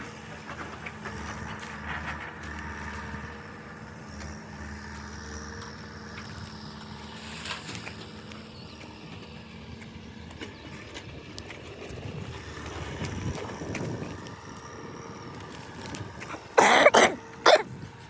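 Engine running steadily at a distance, then near the end three short, loud bursts of noise in quick succession.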